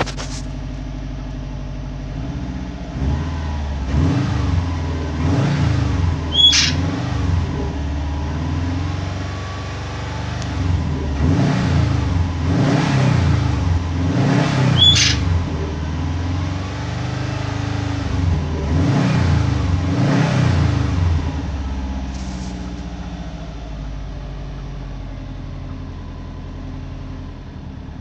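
2009 Subaru Impreza WRX's 2.5-litre turbocharged flat-four idling, then revved up and down several times before settling back to a steady idle, heard from inside the cabin.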